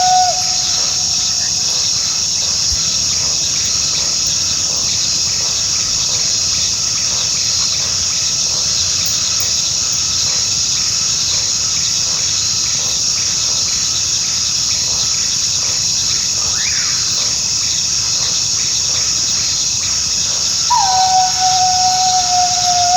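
Coyote howling: a long held note that slides down and then holds steady starts near the end, and the tail of an earlier howl fades right at the start. A steady high chirring of insects runs underneath throughout.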